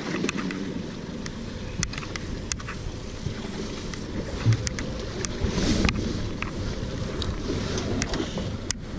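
Wind on the microphone and sea water around a small boat, a steady low rumble, with a few sharp clicks and knocks scattered through it.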